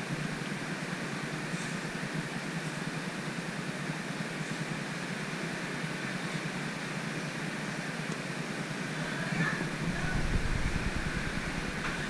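Steady mechanical whir and hiss of room background noise, with a low rumble swelling briefly about ten seconds in.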